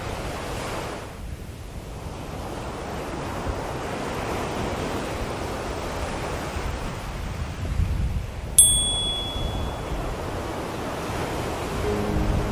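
Ocean waves rolling in and washing back, swelling and easing. About two-thirds through, a small bell is struck once and rings briefly at a high pitch, marking a two-minute reiki interval. Soft music starts near the end.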